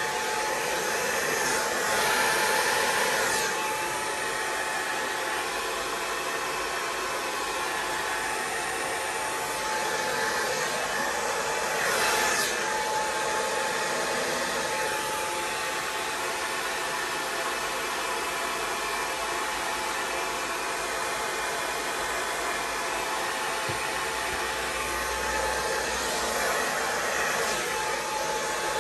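Hair dryer blowing wet acrylic pour paint across a canvas. It runs steadily with a thin motor whine and gets louder briefly about two seconds in and again about twelve seconds in.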